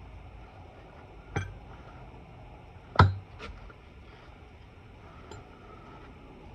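Sharp metallic knocks on an air-cooled 36 hp cylinder head: a hammer popping the valve spring retainers so the keepers come loose. Two clear strikes about a second and a half apart, the second the loudest and briefly ringing, then a couple of faint clinks.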